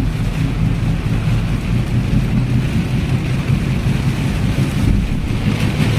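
Steady low rumble of a car driving through a heavy typhoon rainstorm, with rain and wind noise over it throughout.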